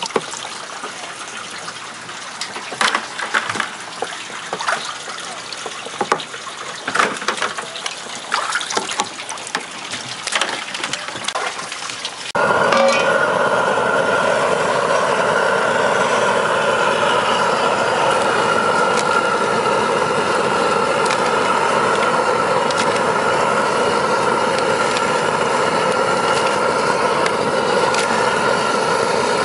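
Water running from a hose into a lobster tank, with scattered sharp knocks of shells as lobsters are handled. About twelve seconds in, a cut to the loud, steady rush of a propane burner under a steaming boiling pot.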